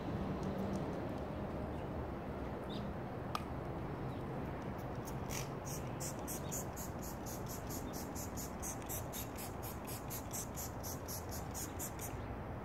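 Trigger spray bottle misting clay-bar lubricant onto a car's hood. From about five seconds in it gives a rapid, even run of short hissing spritzes, about four a second, which stop near the end.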